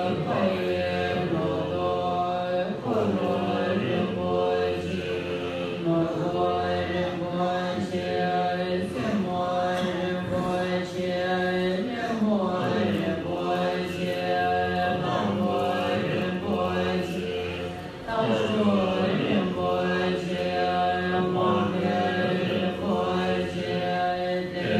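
Many voices chanting a Tibetan Buddhist long-life puja liturgy together, in long, drawn-out melodic phrases, with a short pause about three-quarters of the way through.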